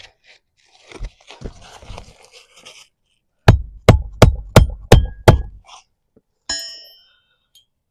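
Hammer driving a roofing nail into asphalt shingles with six quick, evenly spaced blows, after a few seconds of shingles scraping and rustling as they are handled. A single ringing metallic clink follows.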